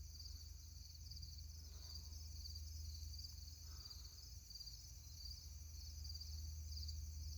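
Faint, steady chorus of crickets and grasshoppers: a continuous high, finely pulsing trill, over a low rumble.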